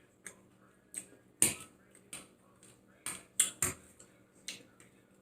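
Close-miked eating sounds: a string of irregular sharp clicks and wet smacks, about eight in five seconds, from chewing and mouth noises while eating, with the loudest a little after a second in and again past three seconds.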